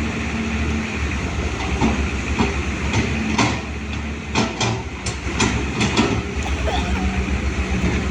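Hydraulic excavator's diesel engine running steadily under load, with a cluster of sharp clanks in the middle from the machine working.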